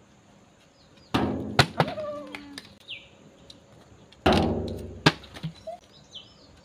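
A plastic water bottle tossed onto the lid of a steel oil drum, landing twice with a hollow thunk and a brief metallic ring. Each landing is followed about half a second later by a sharp clack.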